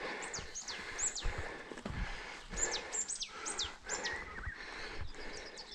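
Birds calling with many short, high, falling whistles, over the irregular knocks and rattles of a bicycle riding a bumpy dirt trail.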